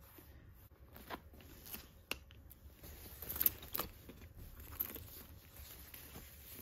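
Rustling and crinkling of packing tissue with light clicks as a new leather flap handbag and its wrapped chain strap are handled, busiest about three and a half seconds in.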